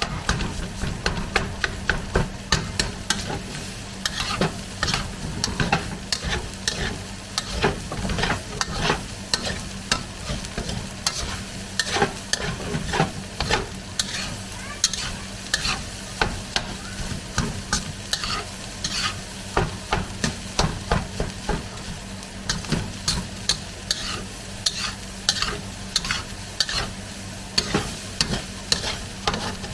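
Egg fried rice sizzling in a hot pan while a utensil stirs and tosses it, with frequent irregular clicks and scrapes of the utensil against the pan.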